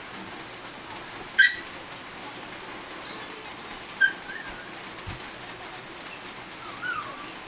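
Steady hiss of rain, with a few short high calls over it; the loudest is sharp and comes about a second and a half in.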